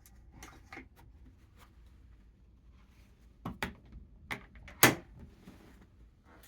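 A few sharp clicks and knocks, like a door or latch being handled. A faint pair comes near the start, a quick cluster follows in the second half, and the loudest knock lands just before five seconds in.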